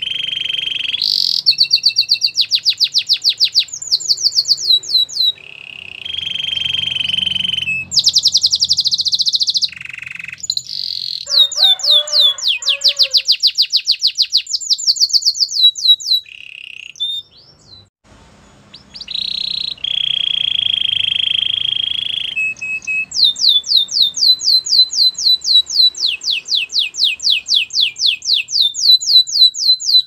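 White domestic canary singing a long, varied song. Fast runs of repeated notes, each sweeping down in pitch, alternate with held buzzy notes. The song breaks off briefly about halfway through, then returns in a long run of repeated notes, about four a second, near the end.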